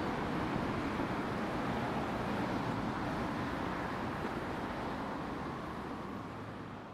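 Steady outdoor background noise, an even rush with no distinct events, fading out near the end.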